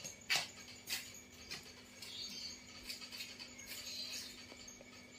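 Quiet background with a steady faint hum and scattered faint high chirps. Two sharp clicks come about a third of a second and one second in.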